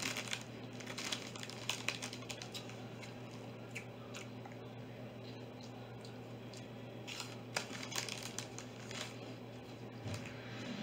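Potato chips being eaten: irregular crisp crunches and crinkling of the chip bag, over a steady low hum.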